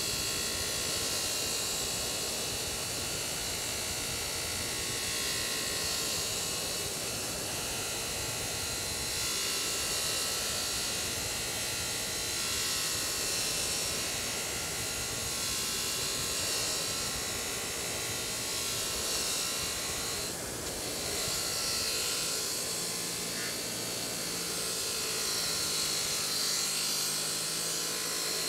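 Bench grinder running steadily with a wire wheel brushing rust off a steel Estwing hammer: motor whir with wire bristles scratching on the metal.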